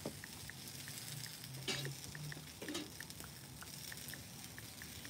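Quiet room tone with faint, evenly spaced soft ticks, about three a second, and a brief faint murmur near the middle.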